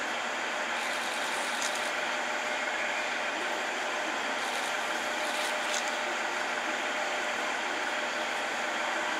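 JR East 189 series electric train standing at the platform, its onboard auxiliary equipment running with a steady hum and hiss. A few faint ticks are heard about two seconds in and again around five and a half seconds.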